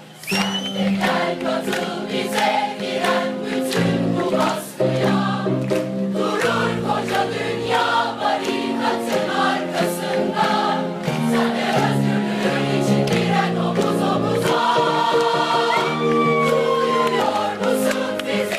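Background music: a choir singing held notes over sustained chords, with a steady beat.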